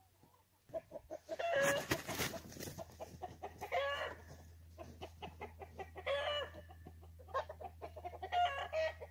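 Chickens squawking: four loud calls about two seconds apart, with quick clucks between them.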